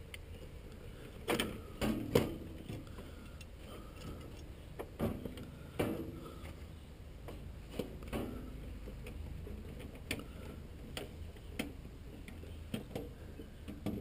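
Scattered clicks and taps of hands working wires and push-on connectors at the terminals of an HVAC blower control board. The loudest clicks come a little over a second in and again around five to six seconds in, over a low steady hum.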